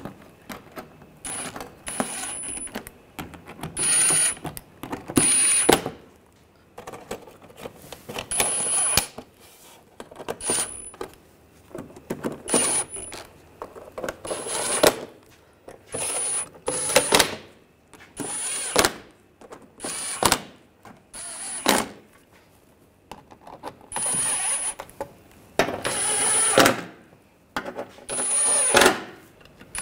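Cordless power driver with a socket spinning bolts down into the car's underbody panel in more than a dozen short bursts, each about a second or less, as the fasteners are tightened.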